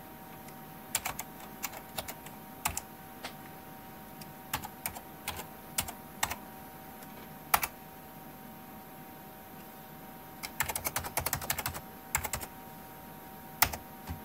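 Keystrokes on a computer keyboard: short irregular bursts of key clicks with pauses between them, a few single louder strokes, and a quick run of typing about two-thirds of the way through.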